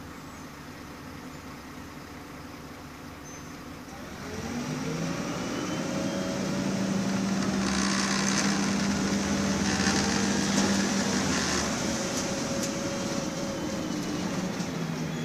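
MAN 18.240 bus's diesel engine heard from inside the saloon: idling, then revving up as the bus pulls away about four seconds in. Its note rises, holds steady, and eases down near the end.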